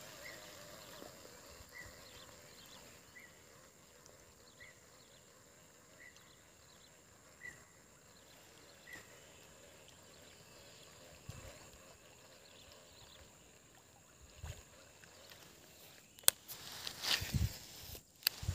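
Faint outdoor ambience: a small animal's short chirp repeating about every second and a half over a steady high hiss, then a sharp click and a brief rustle near the end.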